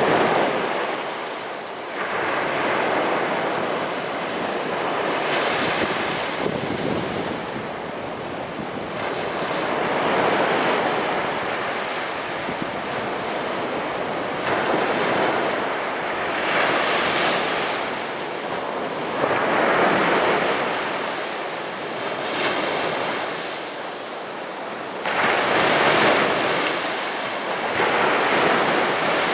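Sea surf breaking on a beach, the roar of the waves swelling and easing again every few seconds as each wave comes in.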